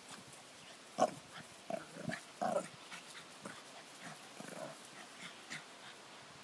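Small dog vocalising in short bursts while play-fighting with a cat. Four quick, louder ones come between about one and two and a half seconds in, then fainter ones.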